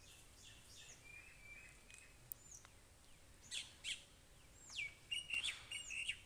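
Small birds chirping and calling, with short whistles that sweep down in pitch. The calls are faint at first and come more often and louder in the second half.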